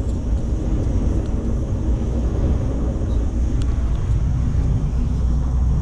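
Steady low rumble inside a moving cable-car gondola: wind and the cabin running along its cable, with one faint tick.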